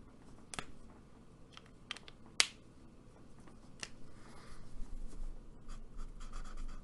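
A few sharp small clicks from marker handling, the loudest about two and a half seconds in, then faint scratching of an alcohol marker nib stroking across paper.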